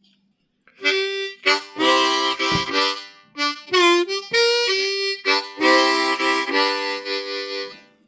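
Seydel diatonic harmonica in C played in a run of short riffs with several notes sounding together, starting about a second in, with a note bent in pitch near the middle.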